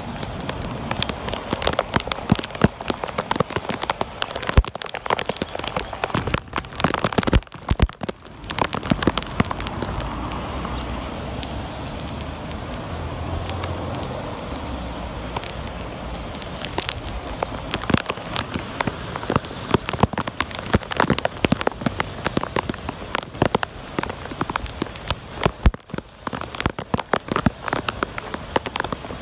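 Rain falling steadily, a constant hiss thick with sharp, close drop taps.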